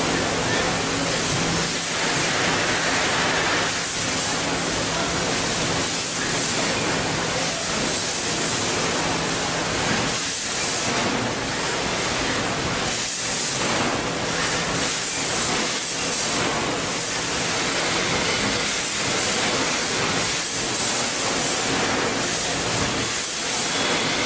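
Packaging machine for beans running: a steady loud hiss with a low mechanical hum and brief dips in the noise.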